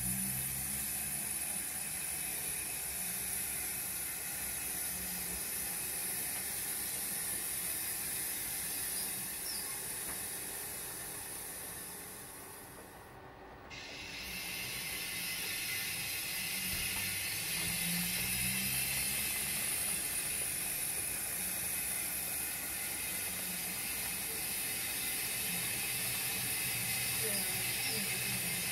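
0 gauge model steam locomotives running on the layout: a steady steam-like hiss with mechanical clicking and rattling, dipping briefly about halfway through.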